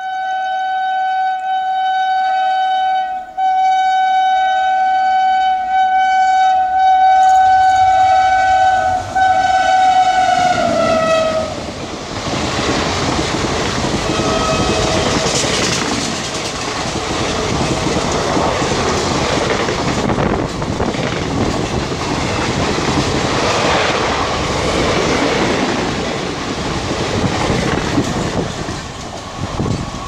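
WAP7 electric locomotive's horn sounding one long, loud single-tone blast with a few short breaks, its pitch dropping as the locomotive passes about eleven seconds in. Then the express's coaches rush past at speed, wheels clattering over the rail joints, with a brief faint toot of the horn shortly after.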